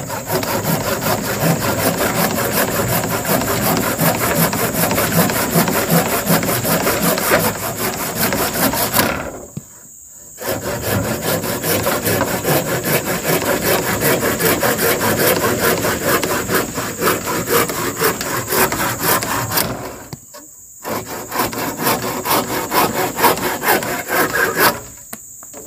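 Hand saw cutting through wood with rapid, even back-and-forth strokes, in three long bouts that stop briefly about nine seconds in and again about twenty seconds in. A steady high insect drone runs underneath.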